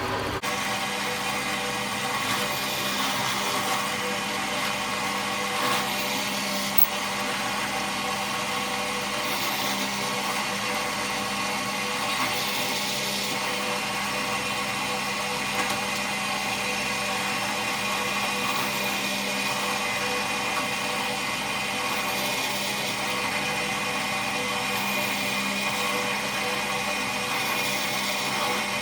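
Drill press motor running steadily with a constant whine, a couple of faint knocks along the way.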